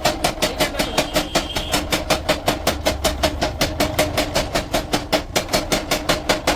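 Power hammer forging steel: rapid, even blows at about six or seven a second, each with a metallic ring.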